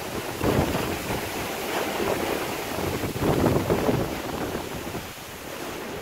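Wind buffeting the microphone and rough-sea waves washing against a fishing boat's hull, rising and falling in surges every second or so.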